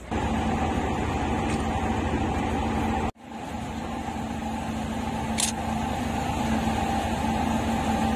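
Water tanker truck's engine running steadily while it pumps water out through its hose, a constant mechanical hum over a low rumble. The sound cuts out for an instant about three seconds in, then carries on unchanged.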